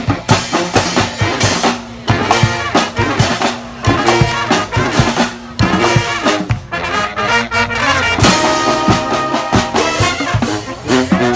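Street brass band playing live: trumpets and trombones over a steady drum beat.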